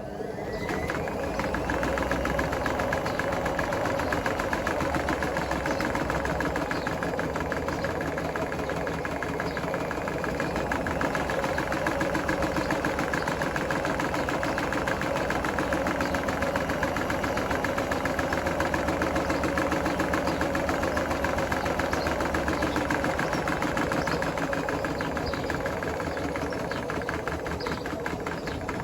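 Hotpoint WMFUG742 washing machine spinning up on its final spin with bricks in the drum. It builds to full speed over the first second or two, then runs loud and steady with a fast, even rattle.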